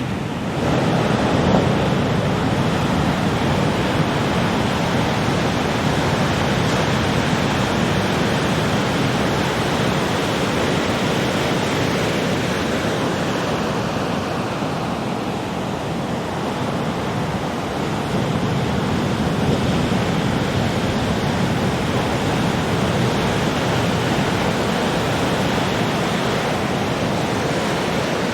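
Ocean surf: large waves breaking one after another in a continuous rushing roar, swelling about a second in, easing around the middle and building again.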